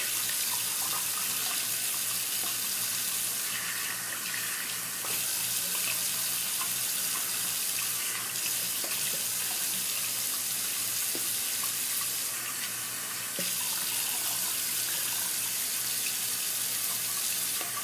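Bathroom tap running steadily into a sink, with a few faint clicks now and then.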